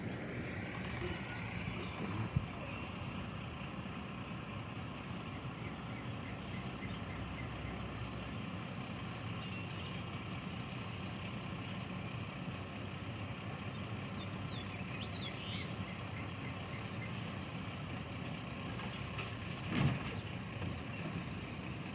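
Garbage truck running, a steady low engine rumble, with brief high-pitched squeals of its brakes about a second in, again near the middle and near the end.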